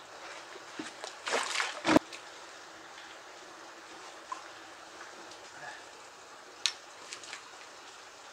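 A hooked fish splashing and stirring the water at the surface as it is played on the line, over a faint steady trickling. A short burst of splashing about a second and a half in ends in a sharp knock, and a lighter click comes near the end.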